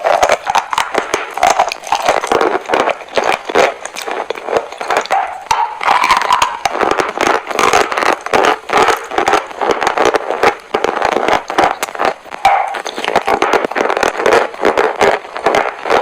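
Close-miked crunching and chewing of chalk: a dense run of crisp cracks and crackles, tightly packed throughout.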